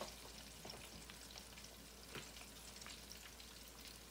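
Catfish deep-frying in hot oil in a cast-iron Dutch oven: a faint steady sizzle with scattered small pops and crackles.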